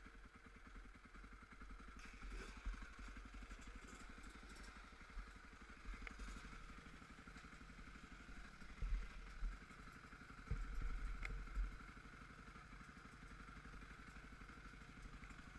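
Quad bike engine running steadily at low revs with a fast, even beat, with a few short knocks and clunks around the middle.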